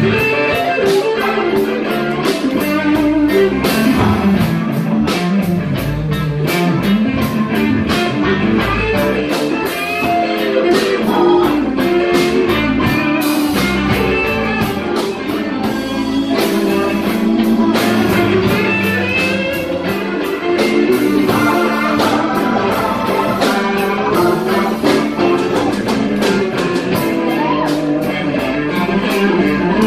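Live blues band playing: electric guitar over bass guitar and drum kit.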